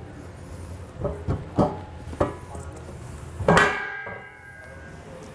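Steel fifth-wheel hitch base and bed rails knocking together as they are shifted into place: a few light clunks, then a louder metal clang about three and a half seconds in that rings briefly.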